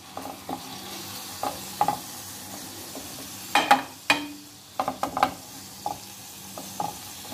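Chicken breast in a yogurt masala sizzling in hot oil in a frying pan, with a spatula scraping and knocking against the pan as the chicken is pressed and moved. There are about a dozen short strokes, the loudest a little past halfway.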